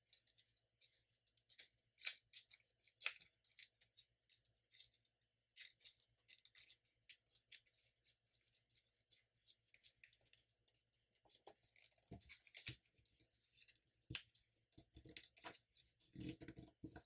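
A sheet of paper being folded by hand: faint, scattered crinkles and rustles as a layer is curled and tucked into a pocket, with a few louder rustles in the second half as the folds are pressed flat.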